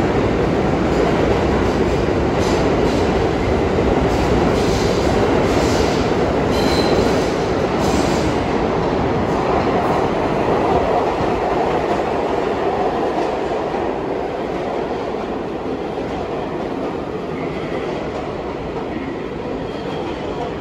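R62 subway train pulling into the station: steady heavy rumble with its wheels clattering over rail joints, and a brief thin wheel squeal about a third of the way in. The noise eases slowly as the train slows along the platform.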